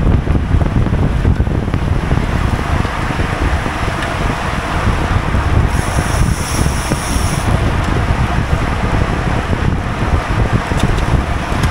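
Heavy wind buffeting on the microphone of a GoPro riding on a racing bicycle at speed: a loud, steady low rumble. About six seconds in comes a brief high-pitched buzz lasting a second and a half.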